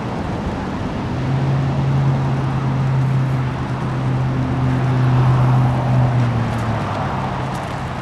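A steady engine hum swells over about five seconds and fades again, most likely a vehicle going by on the nearby highway. Underneath runs a constant rushing of surf and wind.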